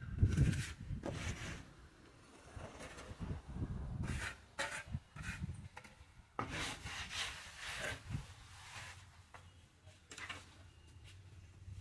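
Wooden plastering float rubbing and scraping over fresh cement plaster on a wall, in irregular strokes with short pauses between them.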